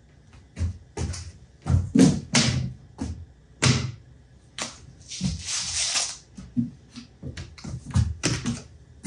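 Irregular knocks, taps and clatters from hands handling a wooden shop cabinet and its parts. Around five seconds in there is a rubbing, scraping noise that lasts about a second.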